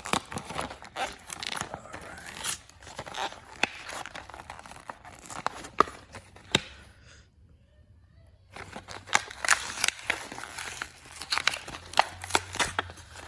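Retail packaging of a small LED flashlight being torn and worked open, a continuous rustle with many sharp snaps and clicks; it stops for about a second and a half near the middle, then resumes.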